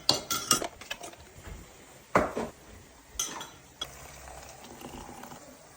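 Kitchen clatter: dishes and utensils clinking and knocking in a few separate bursts, with a cluster right at the start, the loudest knock about two seconds in, and a few more around three seconds in.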